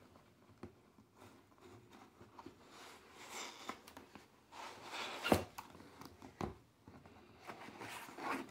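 Cardboard rubbing and sliding as a printed sleeve is slid off a cardboard pistol box and the box is handled, with a few short knocks, the sharpest about five seconds in.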